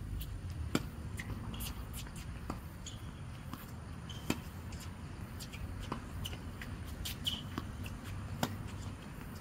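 Tennis rally on a hard court: sharp pops of racket strings striking the ball and the ball bouncing, one every second or two, over a steady low rumble.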